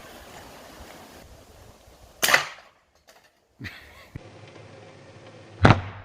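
Seneca Light Hunter 909 .45 caliber PCP air rifle firing: a sharp, loud report a little over two seconds in, and a second loud report near the end.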